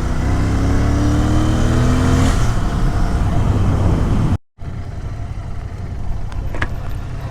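Motorcycle engine under way, its pitch climbing as it accelerates over the first couple of seconds, over a heavy low rumble. About four seconds in the sound cuts off abruptly and gives way to a quieter steady engine and road rumble.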